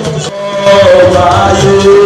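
A church choir sings, led by a singer on a microphone, in long held notes. It gets louder about half a second in.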